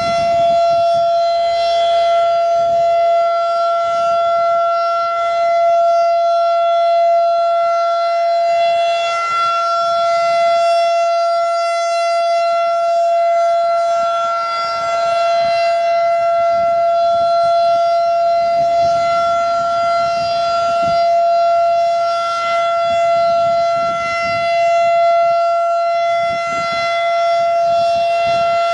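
Federal Signal 2001 rotating electromechanical outdoor warning siren sounding a steady single-pitch tone during a routine test, gently swelling and fading in loudness as the head turns.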